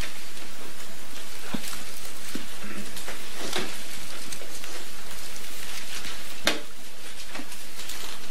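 Bible pages and a sheet of paper rustling and turning close to a lectern microphone, a run of short crackles over a steady hiss, with one sharp knock about six and a half seconds in.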